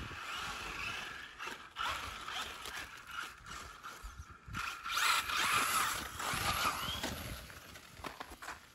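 Brushless electric motor and gear drivetrain of an RC monster truck whining as it drives on two Milwaukee M12 batteries wired in parallel. The whine rises and falls as the truck speeds up and slows, over the noise of its tyres on ice and snow.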